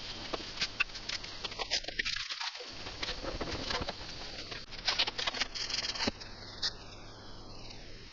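Irregular scratching, crackling and light clicks of hand work on foam, such as carving or scraping the model's foam parts, getting a little quieter near the end.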